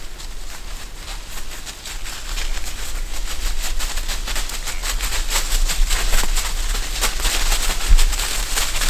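Dry fallen leaves crackling and rustling in a dense, rapid patter that grows louder from about two seconds in, over a steady low rumble. One sharp knock comes near the end.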